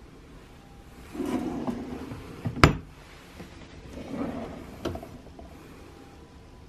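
Wooden drawers sliding on their runners. One is pushed shut and stops with a sharp knock about two and a half seconds in. Another is pulled open and ends in a lighter knock near five seconds.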